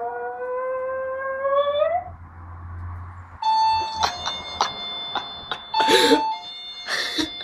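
West Highland white terrier giving one long howl that rises slowly in pitch for about two seconds. About halfway through a doorbell chime starts with steady ringing tones, broken by several short sharp sounds.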